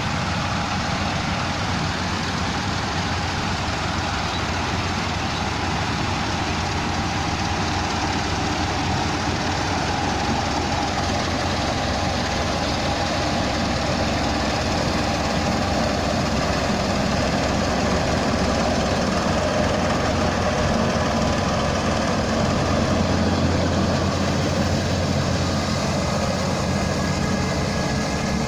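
Rice combine harvester running, a continuous engine and machinery drone that grows a little louder past the middle.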